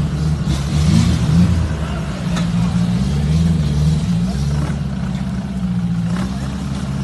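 Off-road vehicle engine running, its pitch rising and falling with the throttle, then holding steadier near the end, with a few brief knocks.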